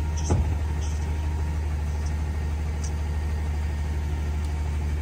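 CNG-powered rear-loader garbage truck engine idling steadily, with a single sharp knock about a third of a second in.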